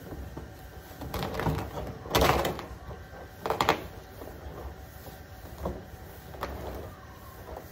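A large plastic silage drum lying on its side being shifted and worked by hand, giving several scraping rubs and hollow knocks on the plastic. The loudest comes about two seconds in, another about three and a half seconds in, and fainter ones follow later.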